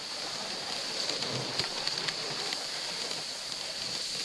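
A dog sled gliding over a packed snow trail: a steady hiss of the runners sliding on the snow, with a few faint scattered ticks.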